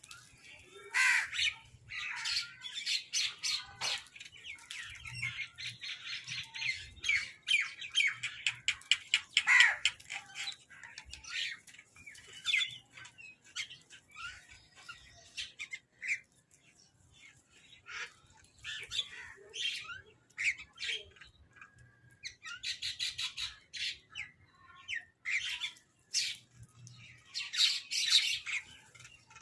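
Crows calling and squawking. For about the first ten seconds the harsh calls pile up thick and overlapping, then they come in scattered calls, with louder bunches near the end.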